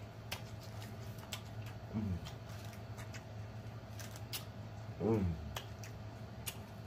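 Close-up chewing of a crunchy hard-shell taco: wet mouth clicks and crunches, with two short falling hums from the eater, one about two seconds in and a louder one about five seconds in.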